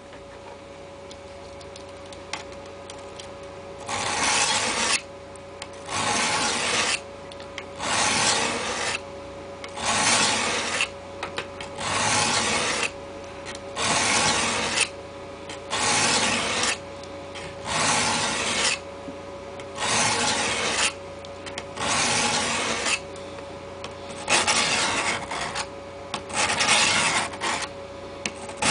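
Knife blade drawn across the 300 face of a diamond-dust sharpening plate: a rasping stroke roughly every two seconds, about a dozen strokes, beginning about four seconds in.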